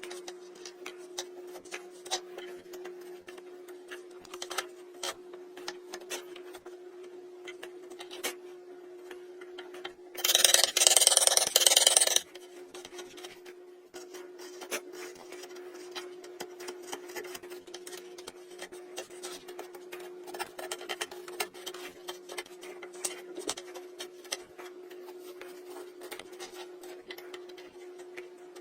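Hand chisel cutting wood: irregular small clicks, taps and scraping cuts over a steady hum. About ten seconds in, a loud rushing hiss lasts about two seconds.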